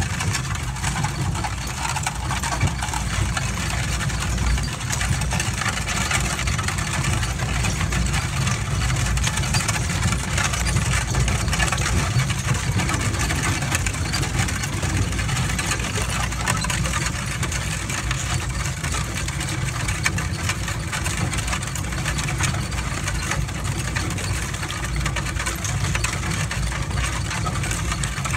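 Mule-drawn wagon rolling up a gravel road: a steady rumble and crunch of the wheels on gravel, with the harness trace chains rattling.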